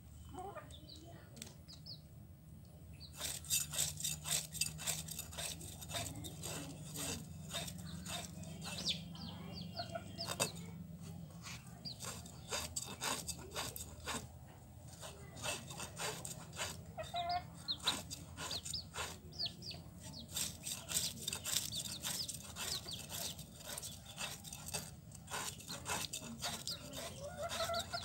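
Chickens clucking, over many quick scraping and knocking strokes as a snakehead fish is scaled and cut against a boti blade.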